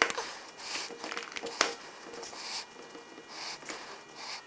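Hand-held cutter biting through rubber fuel hose, with two sharp clicks about a second and a half apart and soft rustling and squeaking of rubber and gloved hands between them.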